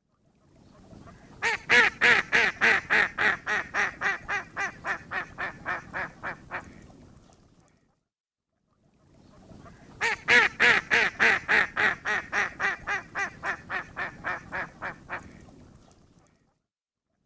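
A duck quacking in two long runs of rapid quacks, about four a second, each run loud at first and fading away over about five seconds, with a pause of a few seconds between them.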